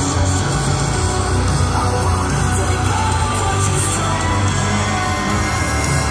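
Loud hard-rock music played over PA speakers.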